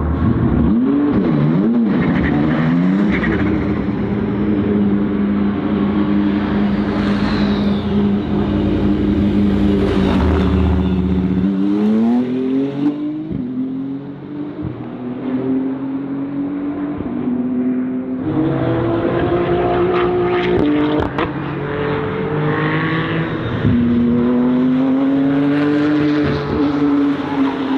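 BMW M4 GT3 race car's twin-turbo straight-six at racing speed: the engine note is held high, falls steeply for a stretch of lower, quieter running, then climbs again through several upshifts, each a short drop in pitch, with a few sharp cracks along the way.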